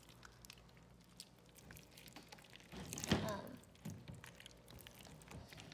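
Hands kneading and pulling a lump of sticky glue slime, giving faint wet squelches and small clicks, with a short louder noise about three seconds in. The slime is still sticky and not very stretchy.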